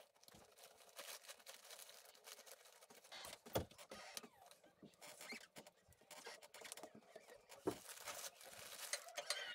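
Faint handling noises: light rustling and scattered small clicks, with two sharper clicks about three and a half and nearly eight seconds in.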